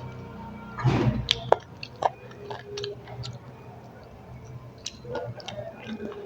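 A person chewing food close to the microphone, with wet mouth smacks and sharp clicks scattered through it and a louder burst about a second in.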